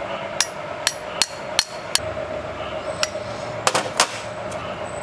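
Sharp metallic knocks, about eight at uneven spacing, the loudest two close together near the end, over a steady hum.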